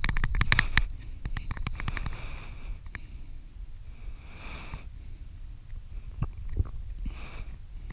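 Fly reel clicking rapidly in two short runs during the first two seconds or so as line runs on or off the spool while a hooked fish is played. Then two heavy breaths, about four and a half and seven seconds in, over a low rumble on the microphone.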